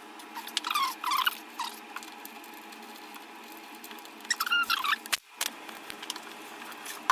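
Short high squeaks in two clusters, about a second in and again past four seconds, from screws being turned with a screwdriver while they are started back into the radio's chassis mounting.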